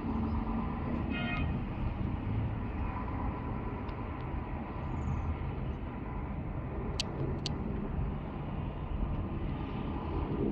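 Steady low outdoor rumble, with a short pitched call about a second in and two sharp clicks about seven seconds in.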